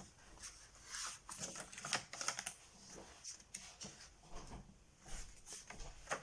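Scattered light clicks and rustles, a few each second, irregular in spacing.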